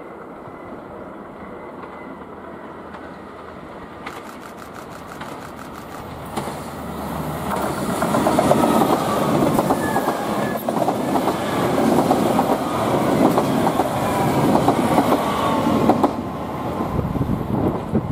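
JR Shikoku 2000 series diesel tilting express passing close, its engines running and its wheels clattering over the rail joints. It grows louder over the first several seconds, is loudest as the cars go by, then drops away near the end.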